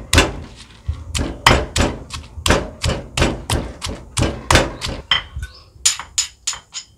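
Stone pestle pounding Thai green curry paste in a heavy stone mortar: dull, regular thuds about two to three a second. About five seconds in these give way to lighter clinks with a ringing note, a metal utensil tapping a cooking pot.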